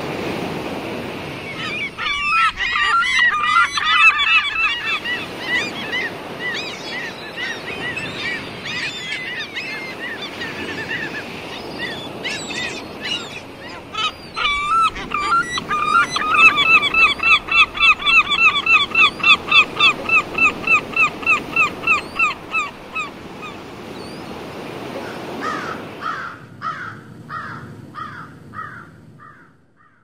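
Gulls calling, several at once with overlapping cries. Past the middle comes a long run of rapid laughing calls at about three a second. A fainter series of calls follows near the end, over a steady noisy background.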